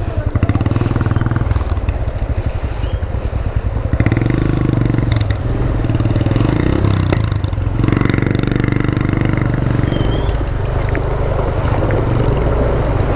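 Small motorcycle engine running under load on rough ground. The engine note rises about four seconds in and again near eight seconds.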